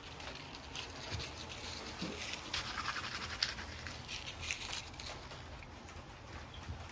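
A cat at play, scrabbling and scratching with light pattering and rustling. The scuffling is busiest a few seconds in, then eases off.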